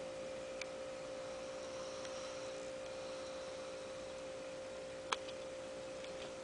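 A steady hum at one fixed pitch over a background hiss, with a single sharp click about five seconds in.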